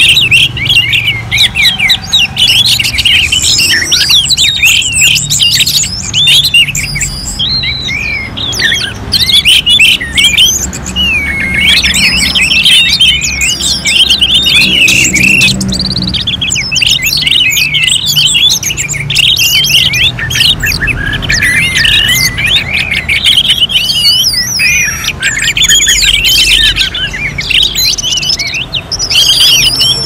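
Several orange-headed thrushes (anis merah, Geokichla citrina) singing at once. It is a loud, unbroken stream of rapid, varied whistled phrases and chatter, with the songs overlapping.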